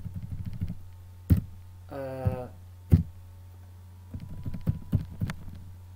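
Computer keyboard being typed on: two sharp key strokes about a second and a half apart, then a run of lighter key clicks, over a steady low hum. A brief vocal hum comes between the two strong strokes.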